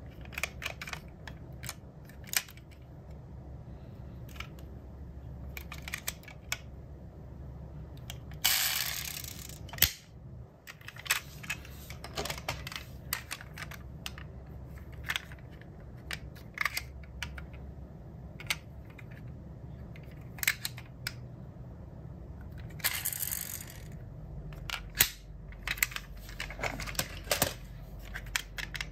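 Small diecast metal model cars being handled: scattered light clicks and taps as the toy cars are picked up, turned in the fingers and set down. Twice there is a longer rushing noise of about a second, over a low steady hum.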